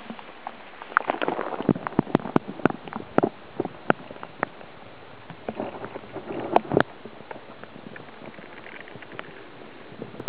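Water splashing and sloshing around a camera as it is dipped into a river and held underwater, with many sharp clicks and knocks from handling it. In the last few seconds only a quieter, steady wash of water noise remains.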